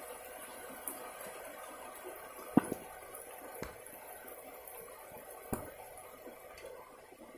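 Steady rain falling on leaves and grass, with a few sharp drip-like taps close by, the loudest about a third of the way in.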